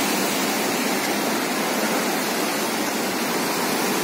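Steady rushing noise of the Kali Sindh river in flood, fast turbulent floodwater churning.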